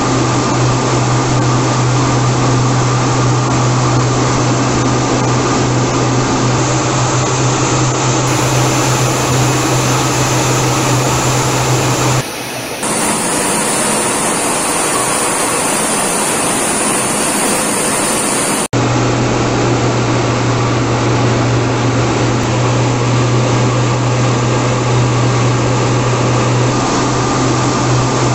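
Steady jet engine roar and rushing air noise from military jet aircraft in flight, with a strong low hum underneath. The sound changes abruptly about twelve seconds in and changes back about six seconds later.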